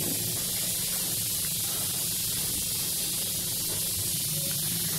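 Khoya gulab jamun dough balls deep-frying in oil over a low flame, the oil sizzling with a steady, even hiss.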